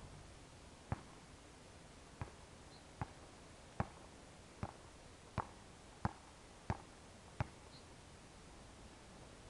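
Basketball being dribbled on a hard court: nine separate bounces, the first pair about a second and a half apart, then settling into roughly one bounce every 0.7 seconds.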